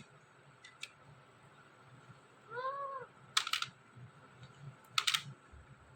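Green ringneck parrot giving one short, soft call that rises and falls in pitch about two and a half seconds in, followed by a few sharp clicks.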